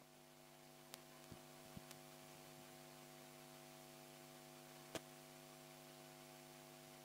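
Near silence: a faint steady electrical mains hum in the audio line, with a few faint clicks.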